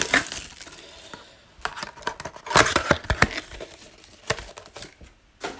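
Plastic trading-card pack wrappers crinkling and tearing as a pack is handled and opened, in irregular crackly bursts, the busiest about two and a half to three and a half seconds in.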